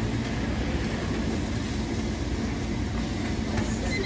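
Steady low rumble with a constant low hum, the background noise of a street-side stall, with no clear sound from the knife.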